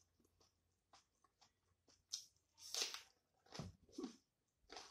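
Close eating sounds: chewing and wet mouth noises as rice and chicken curry are eaten by hand, in about five short bursts, the loudest about three seconds in.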